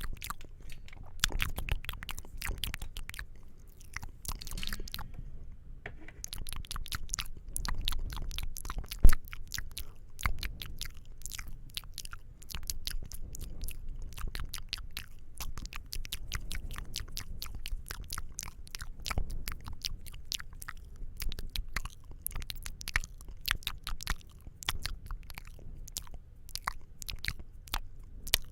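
Close-miked ASMR mouth sounds: a rapid, dense stream of wet clicks and smacks of lips and tongue, with a brief pause about five seconds in and one sharp, loud click about nine seconds in.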